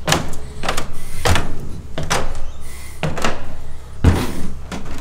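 Footsteps on wooden stair treads: about half a dozen thuds, one every half second to a second, the heaviest about four seconds in.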